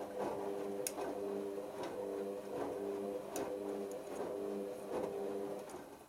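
Hoover Optima OPH714D washing machine's drum motor humming steadily as it tumbles a small wet load in the main wash, with light ticks and knocks from the turning drum and laundry. The motor stops near the end, pausing the tumble.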